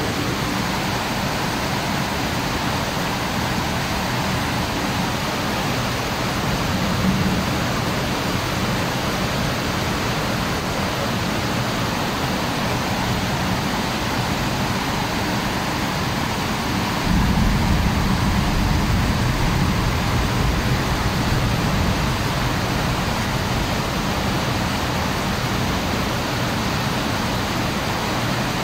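Steady rain, an even hiss. A little past halfway, a low rumble swells in and lasts about five seconds.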